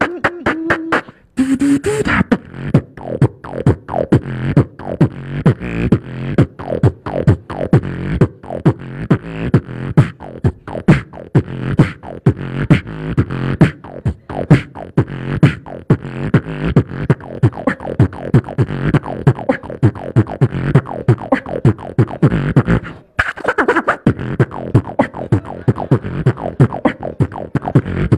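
Human beatboxing into a handheld microphone: rapid mouth-made drum sounds in a fast, steady rhythm with a pitched bass tone underneath. It drops out briefly about a second in and again near the 23-second mark.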